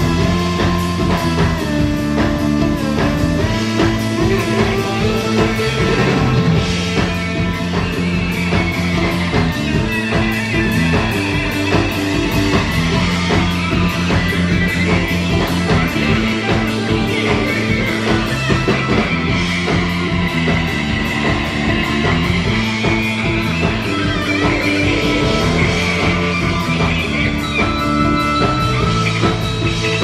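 Live rock band playing: electric guitars, bass guitar, keyboard and drum kit. A repeating bass line runs under a steady drum beat, with a wavering lead line in the middle.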